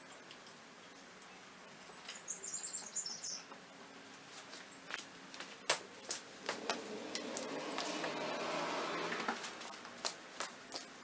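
Handling noise from a steel C-clamp being tightened on a wooden furring strip: scattered light clicks and knocks, a brief high squeak about two seconds in, and a few seconds of rustling near the middle.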